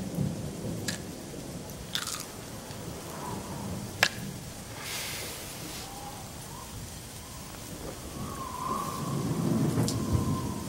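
Steady rain with low rolls of thunder, a rumble building again near the end, broken by a few sharp clicks.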